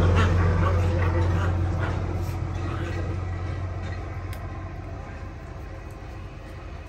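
A passing motor vehicle's low, steady engine hum, fading away over several seconds.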